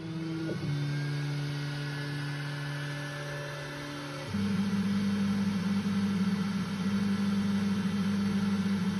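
Flashforge Adventurer 4 3D printer's stepper motors driving the print head: a steady whine that jumps in pitch about half a second in as the head changes from a fast move to a slower sweep across the gantry. About four seconds in it turns into a louder, rougher buzz as the head steps along in 0.02 mm moves at 3000 mm/min. Moves that short come faster than the printer's command buffer can be refilled, which is the cause of the stuttering.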